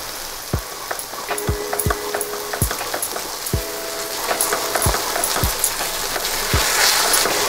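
Beaten eggs sizzling in a hot non-stick frying pan over onions and drumstick flowers, stirred with a wooden spatula from about halfway through. Soft background music with a steady beat sits under the frying.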